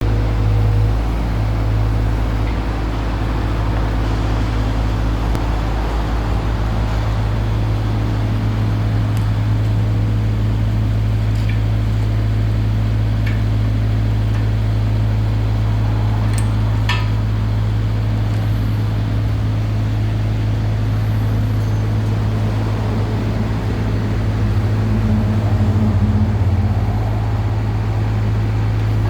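SANY SY60 compact excavator's diesel engine running at a steady speed, with a few sharp metallic clicks about halfway through.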